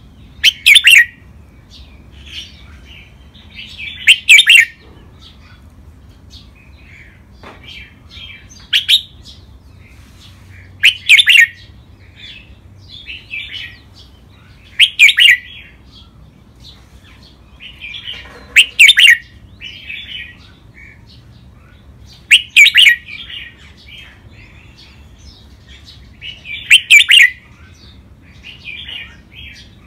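Red-whiskered bulbul singing: eight loud short phrases about every four seconds, with softer chirps between them.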